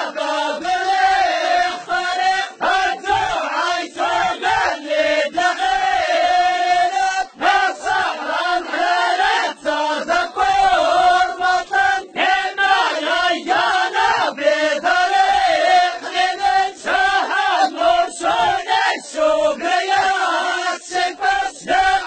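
A chorus of men chanting together in Ajmak, the Amazigh collective song of the Souss, with sharp handclaps beating a steady rhythm under the voices.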